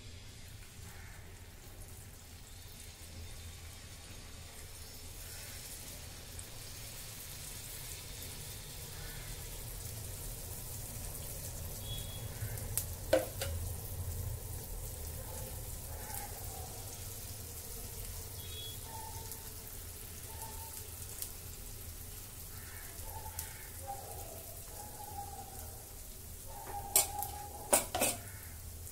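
Sweet wheat-and-jaggery appam batter sizzling in hot ghee as it is spooned into the cavities of an appe (paniyaram) pan, a steady hiss that thickens as more cavities fill. A spoon clinks sharply on metal about halfway through and a few times near the end.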